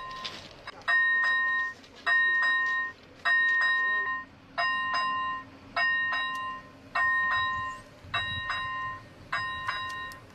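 Railway level-crossing warning signal sounding: a repeated electronic tone, each lasting under a second with a short gap, about once a second.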